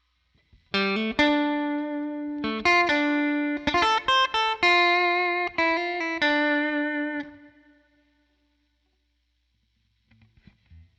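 Electric guitar with Zexcoil Legacy Signature P90-size pickups playing a short clean melodic phrase of picked single notes through a Helix Twin Reverb amp model, with no other effects. The last note rings out, and a few faint low knocks follow near the end.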